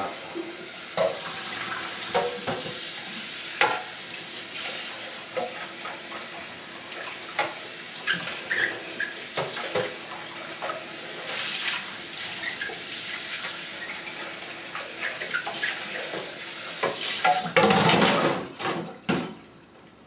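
Kitchen tap running into a stainless steel sink while the upper bowl of an electric vacuum coffee maker is rinsed of its grounds, with knocks and clinks as it is handled. The water gets louder shortly before the end, then stops suddenly.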